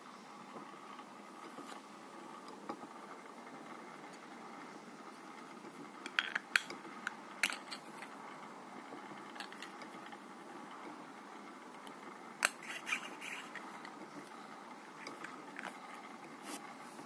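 Hard acrylic herb grinder pieces clicking and clacking together as they are taken apart and handled. There are several sharp clicks about six seconds in, a cluster of clicks about twelve seconds in, and a lighter one near the end, over a steady faint hiss.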